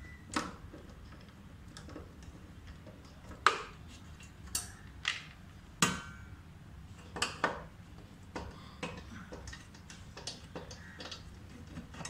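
Screwdriver and metal parts clicking and clinking while the screws holding a refrigerator compressor's mounting are being undone: a dozen or so sharp, irregular clicks, the loudest about three and a half seconds in.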